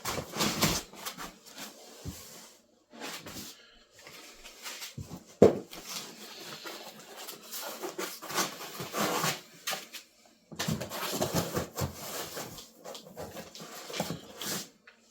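Packing material rustling and scraping in irregular bursts as printer parts are lifted out of their box, with a sharp knock about five and a half seconds in.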